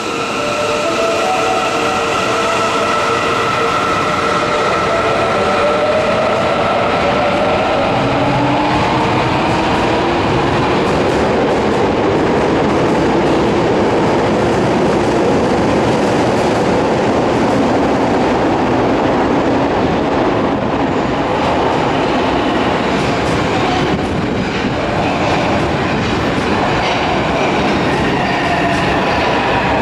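Electric subway train in a station: a steady whine of several tones, then from about eight seconds in a rising whine from the traction motors as the train accelerates, over the rumble and clatter of wheels on the rails.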